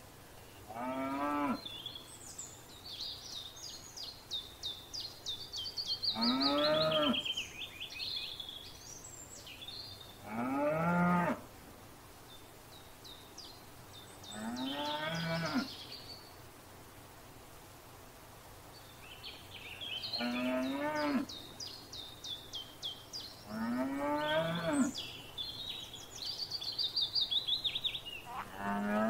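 Cows mooing, about seven separate calls of around a second each, a few seconds apart. Songbirds sing rapid, repeated high phrases over them.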